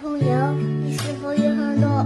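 Background music: held chords, with a wavering melody line over them.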